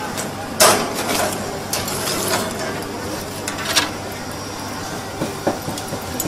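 A few sharp clicks and knocks, the loudest about half a second in, over a steady low hum and background noise.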